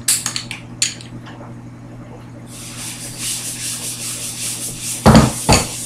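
Handling noise of a pistol being picked up and moved close to a laptop's microphone: a few light clicks in the first second, then rubbing against the microphone from about halfway, and two heavy thumps near the end.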